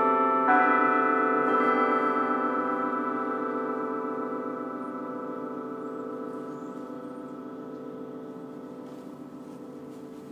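Church bells chiming, the last two strikes about half a second and a second and a half in, after which the bells ring on and slowly fade away.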